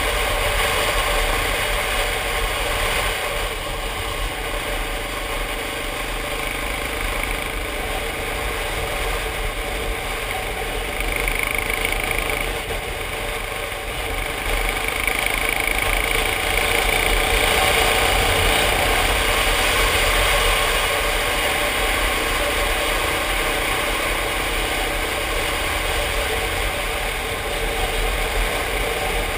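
Motorcycle engine running steadily at road speed, with wind and road noise on a helmet-mounted camera.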